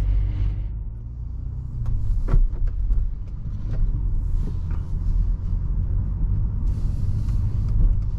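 Cabin sound of a Mini Countryman JCW's turbocharged two-litre four-cylinder pulling away at low speed: a low engine and road rumble that grows louder about two seconds in as the car picks up speed, with a few light clicks.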